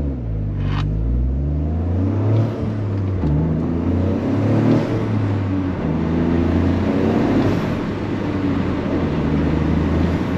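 Toyota GR Corolla's 1.6-litre turbocharged three-cylinder engine, breathing through the stock airbox, pulling under way. Its note climbs and falls in pitch, dropping once about two and a half seconds in.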